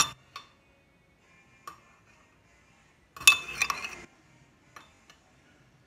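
Metal spoon stirring liquid hand soap in a small ceramic pot, clinking against its sides: a few single clinks, then a quick run of clinks about three seconds in, the loudest part.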